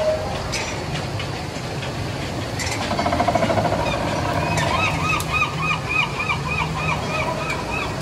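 Steady low hum of the river-rapids raft ride's machinery in its loading station, joined about halfway through by a rapid, evenly repeated chirping squeak, about three a second.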